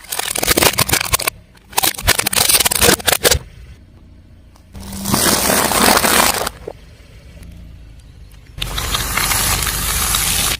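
A car tyre rolling over and crushing brittle objects, in four separate bursts of loud crunching and crackling. The later two bursts are denser and more hissing, and the last cuts off abruptly.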